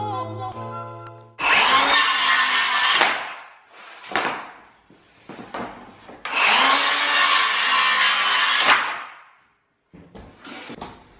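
Circular saw cutting through white moulding board twice, each cut about two seconds long, the motor's whine rising as it spins up and falling as it runs down. Quieter knocks of the board being handled come between and after the cuts.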